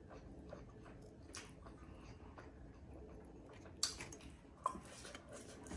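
Faint close-up chewing and wet mouth clicks of someone eating buffalo meat and rice by hand, with a couple of sharper clicks near the end.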